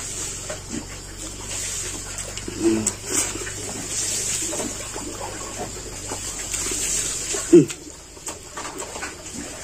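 Eating by hand: rice and curry being mixed and chewed, with small wet clicks and mouth noises. Two short, low voiced sounds come about a third of the way in and near the end; the second slides down in pitch and is the loudest moment.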